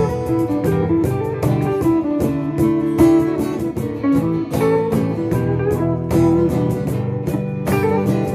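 A band playing an instrumental break: a melody line of held, bending notes over strummed guitar chords and a steady beat.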